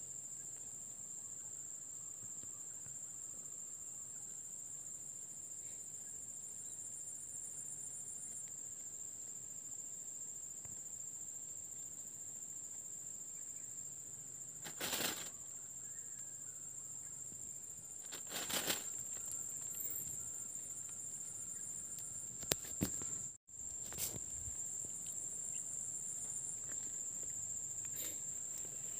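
Steady, high-pitched insect chorus of crickets or similar, with a second pulsing insect call above it that stops early on and returns later. A few brief rustles or knocks are heard from about halfway through.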